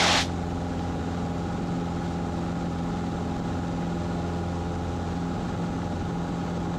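Cessna 150's four-cylinder piston engine and propeller droning steadily at climb power, heard inside the cabin.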